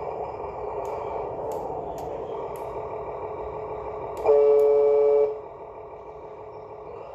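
Simulated truck engine sound from the sound module of a 1/32 Welly Volvo remote-control truck, played through its tiny speaker, with a loud electronic horn blast lasting about a second past the middle. After the horn the engine sound runs quieter.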